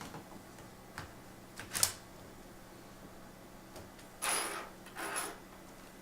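Laptop battery being put back into its bay: a few plastic clicks, a sharp snap just under two seconds in, then two short scraping slides near the end.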